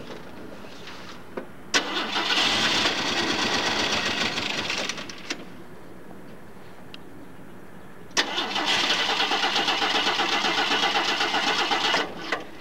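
Ford Maverick's starter cranking the engine in two tries of about three to four seconds each, each opening with a click, with an even rapid chug. The engine doesn't catch: a no-start.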